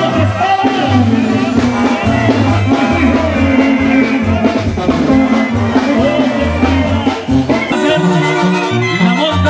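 Latin music with a singer over a pulsing bass line.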